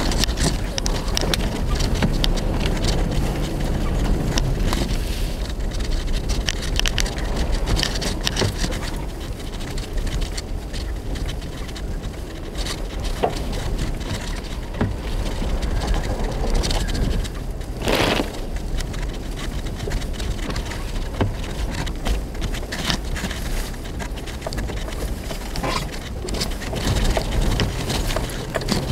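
Inside the cab of a Nissan Xterra driving on a snow-covered road: a steady low engine and road rumble with scattered crackling ticks. A short, louder rush of noise comes about two-thirds of the way through.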